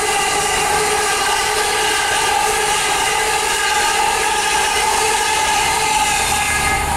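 LNER Class 801 Azuma train passing close by, with a loud steady whine made of several even overtones over the rush of the train. The whine cuts off as the end of the train goes past.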